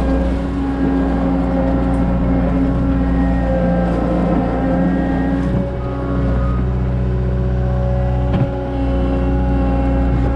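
CAT 279 skid steer's diesel engine running steadily under load as it works the dirt, its pitch shifting slightly now and then. There is a single sharp knock a little past eight seconds in.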